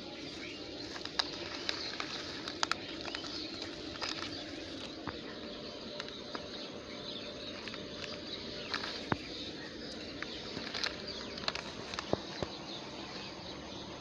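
Plastic snack wrappers and a disposable plastic glove crinkling in a hand as litter is picked up from grass: scattered sharp crackles over a steady outdoor background hiss.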